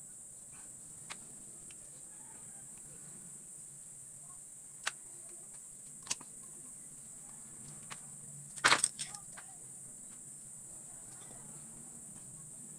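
Scattered light clicks and clinks of small metal carburetor parts and hand tools being handled, with a quick cluster of louder clicks about nine seconds in, over a steady high-pitched hiss.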